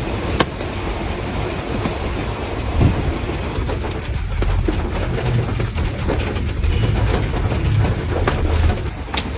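Rain falling, a steady hiss with scattered sharper drop hits over a low, uneven rumble.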